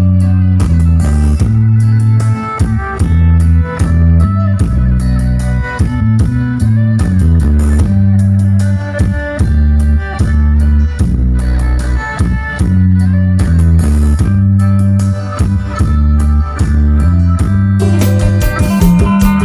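Recorded music with guitar, bass guitar and drums, played loud over a large outdoor PA system, with heavy bass notes changing in a steady rhythm.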